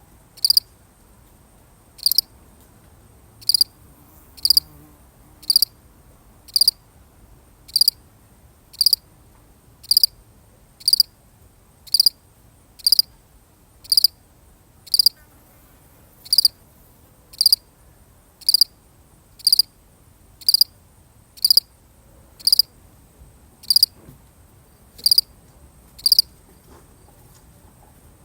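A single cricket chirping: short, evenly spaced chirps about once a second, which stop about two seconds before the end.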